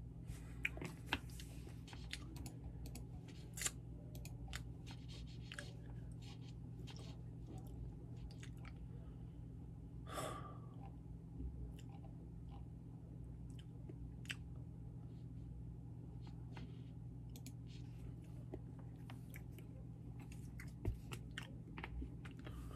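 A person chewing a mouthful of sushi up close to the microphone: soft wet smacks and clicks scattered throughout, with a longer, louder mouth sound about ten seconds in.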